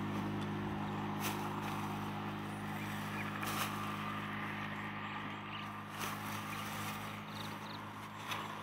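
A steady low engine hum from a motor running off in the fields, with a few sharp knocks of a steel digging bar being driven into dry paddy soil to open a crab burrow.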